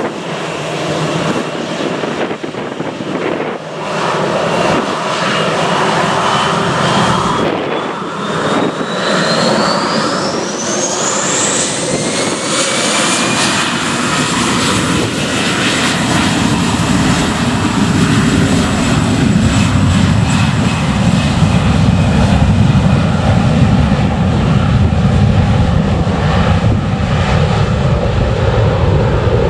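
Airbus A321-200's twin CFM56 turbofans spooling up to takeoff thrust: a whine that climbs steeply in pitch over several seconds, then a loud low rumble that builds from about halfway through as the jet starts its takeoff roll.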